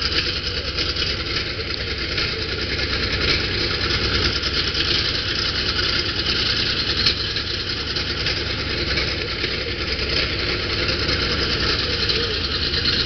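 TAM 190 A 11 bus's diesel engine running steadily at idle just after its first start.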